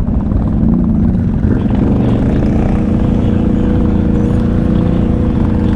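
Quad bike (ATV) engine running at low, steady revs, a continuous drone with a low rumble that settles into an even hum about two and a half seconds in.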